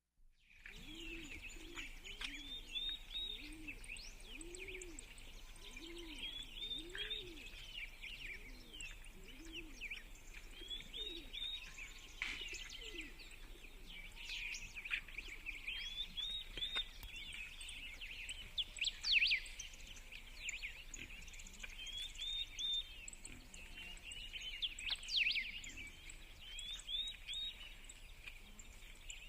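Morning bird chorus: several birds singing and chirping in quick, repeated phrases. Low repeated notes, like cooing, run underneath for the first eight seconds or so.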